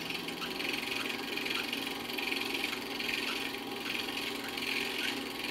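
8mm film projector running: a steady mechanical whir with a light, regular ticking.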